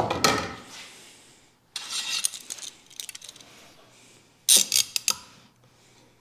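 Steel bar clamp clanking and rattling as it is picked up and set across a glued-up wooden panel, its sliding jaw clicking along the bar. There is a sharp metallic clank at the start and a cluster of loud clicks about four and a half seconds in.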